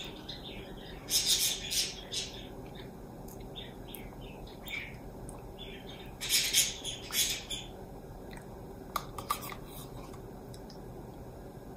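Close-up mouth sounds of eating yogurt off a plastic spoon: lip smacking and slurping in two clusters, about a second in and again around six seconds in, with a few short clicks near the end.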